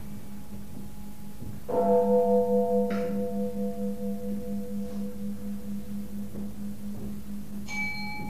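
Buddhist temple bells ringing: a low bell tone hums steadily with a slow pulse. A lower-pitched bell is struck about two seconds in and rings on, wavering as it fades, and a higher-pitched bell is struck near the end.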